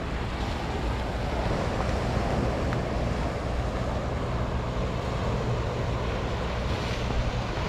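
Steady wind noise on the microphone over the continuous wash of sea surf on a rocky shore.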